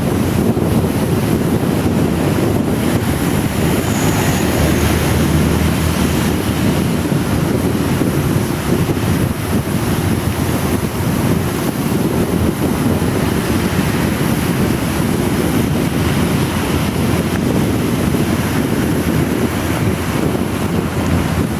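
Loud, steady wind rush buffeting the microphone, mixed with heavy rain, on a motorcycle riding downhill through a downpour.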